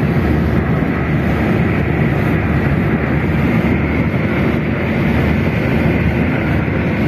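Steady rumble of a moving car heard from inside the cabin, engine and road noise with wind on the microphone.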